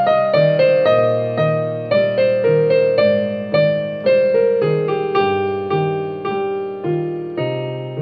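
Solo piano playing a slow, gentle melody. The right hand steps downward note by note over a repeating low left-hand figure, and the melody climbs again near the end. Each note is struck and left to fade.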